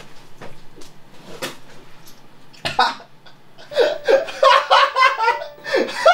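A man gagging and retching after eating blue 'zombie ramen': quiet at first, then a sharp heave about two and a half seconds in and a run of choppy, strained vocal retches from about four seconds.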